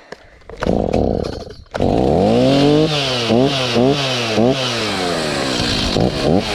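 Two-stroke chainsaw engine starting about two seconds in after a short burst of engine noise, coming up to speed, then having its throttle blipped repeatedly, about two revs a second.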